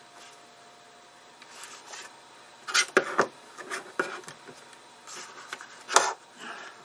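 Hands working cable connectors back into an iMac: rubbing and handling with several sharp clicks, loudest about three seconds in and again about six seconds in.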